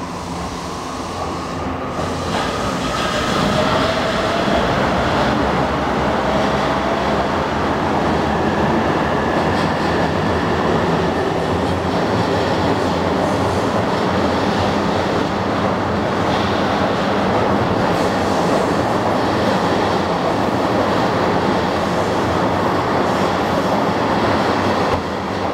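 E259 series Narita Express electric train moving past at close range on an underground platform. A motor whine rises in pitch over the first several seconds as the train gathers speed, then gives way to a steady loud rush of wheel and rail noise echoing off the station walls.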